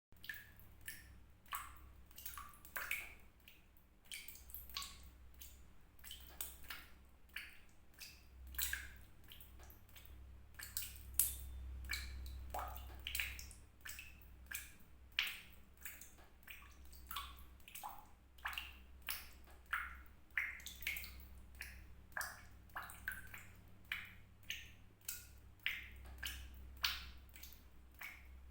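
Water drops falling one by one into water, each a sharp plink with a brief ringing tone, irregularly about one or two a second, over a low steady hum.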